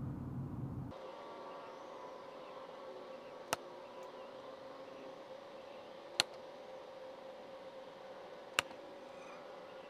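Three sharp arrow strikes into a foam archery target, a few seconds apart, over a faint steady hum.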